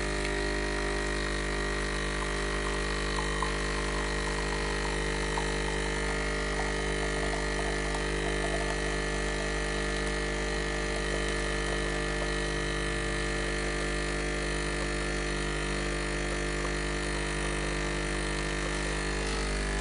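Krups Nespresso capsule machine brewing a lungo: its pump runs with a steady, even buzzing hum.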